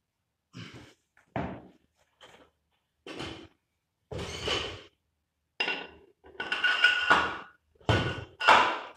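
Weight plates being loaded onto a barbell: a string of metal clanks and knocks as plates slide onto the sleeves and bump together. A longer ringing scrape comes about six to seven seconds in, and the loudest knocks are near the end.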